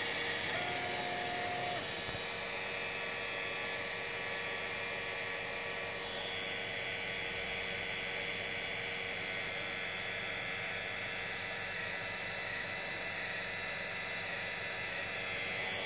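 3D printer running: a steady whir of its cooling fans with the whine of its stepper motors, whose pitch shifts a couple of times.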